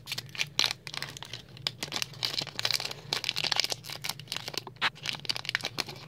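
Foil Pokémon booster pack wrapper being torn open and crinkled by hand: a run of sharp crackles, densest in the middle.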